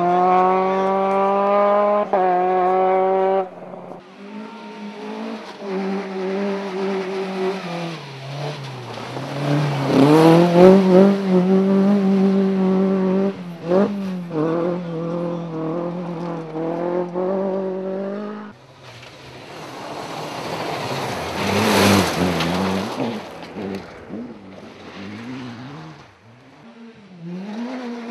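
Rally cars at full throttle on a stage, one after another, engines running at high revs with gear changes and throttle lifts, with abrupt cuts from one car to the next. About three-quarters of the way through, one car passes close in a loud rush of engine and tyre noise.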